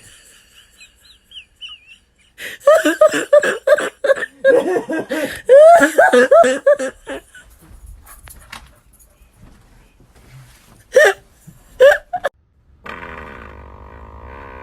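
A person laughing hard in quick repeated bursts for several seconds, followed by two short sharp sounds and then a steady hum near the end.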